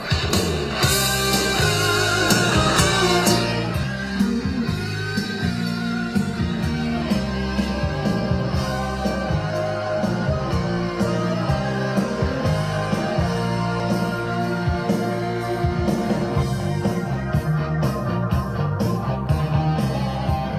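Rock music with guitar playing through a homemade Bluetooth boombox's pair of speakers built into a steel ammo can. It starts abruptly and runs at a steady level.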